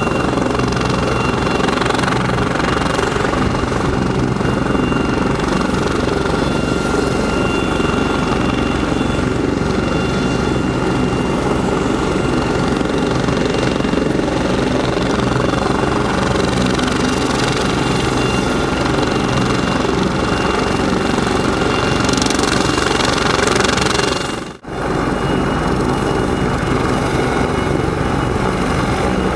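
Bell 430 helicopter's twin turboshaft engines and rotor running steadily on the ground, a high turbine whine over the low rotor noise. The sound drops out briefly about 25 seconds in.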